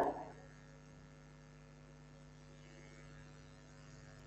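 Faint steady electrical hum, a set of unchanging tones under light hiss, with the last of a woman's voice fading out at the very start.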